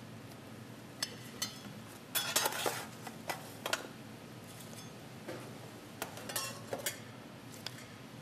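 Metal tongs clinking and scraping against a stainless steel pan as fried chips are lifted out and tipped onto a plate. Scattered light clatters, busiest about two seconds in.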